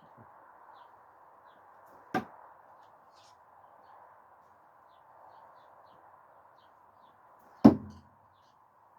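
Two thrown screwdrivers striking a target, no-spin style: a sharp thunk about two seconds in, then a louder one with a deeper thud about five and a half seconds later.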